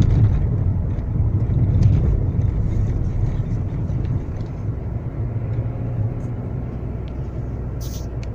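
Car cabin noise of tyres and running gear rumbling over a broken, patched road surface. The rumble eases to a steadier, quieter drone once the car reaches smooth asphalt, about halfway through.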